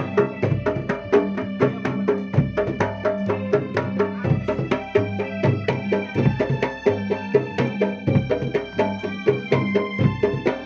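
Jidor pencak silat music: fast, dense drumming on jidor bass drum and hand drums in a steady driving rhythm, with held melodic tones over it.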